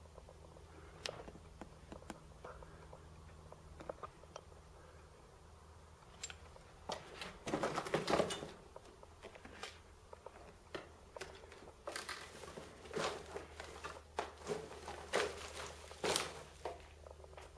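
Footsteps crunching and scuffing on grit and rubble on a brick floor, irregular, with only a few faint clicks at first and heavier, denser steps from about seven seconds in.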